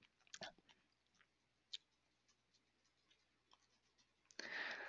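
Near silence: room tone, with two faint clicks in the first two seconds and a soft hiss near the end.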